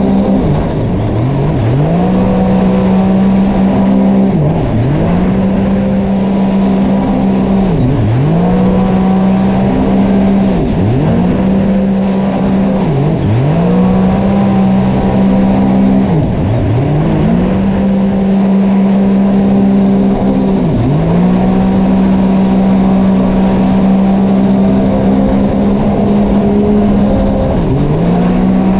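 Sea-Doo racing jet ski engine running hard near full throttle. Every few seconds the revs drop sharply and climb straight back up, as the throttle is eased and reapplied through the race.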